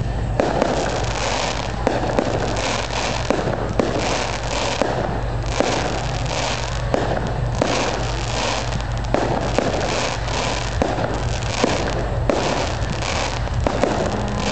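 Fireworks display: a continuous barrage of sharp bangs from bursting shells, a fraction of a second to a second apart, with repeated bouts of crackling between them.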